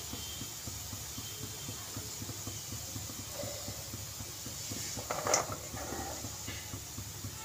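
A perforated metal skimmer clatters once against a kadhai of crisp fried saloni about five seconds in, the pieces rattling as they are turned, over a steady low rumble.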